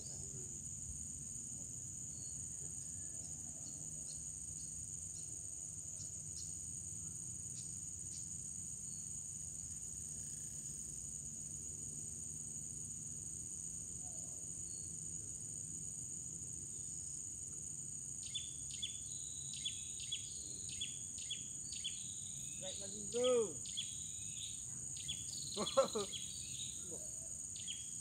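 Steady high-pitched drone of insects, with short repeated chirps joining in about two-thirds of the way through and two brief louder sounds near the end.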